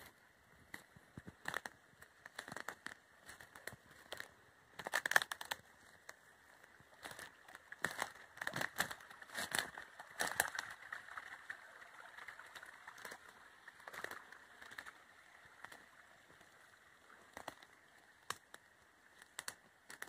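Footsteps crunching through leaf litter and brushing undergrowth, in irregular crackles with the densest clusters about five seconds in and again around eight to ten seconds, over a faint steady trickle of a small forest stream.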